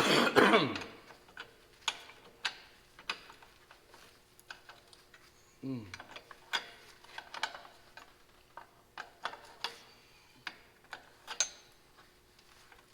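Hand tools working the bolts of an old tractor's umbrella bracket: a string of sharp metal clicks and taps at uneven intervals, with a short sound falling in pitch at the start and another about six seconds in.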